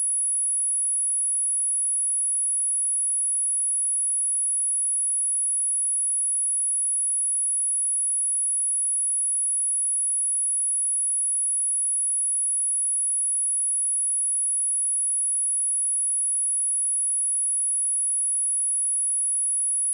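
A pure sine-wave test tone at 10,228 Hz: a single high-pitched tone held steady at constant level, used for speaker testing and speaker cleaning.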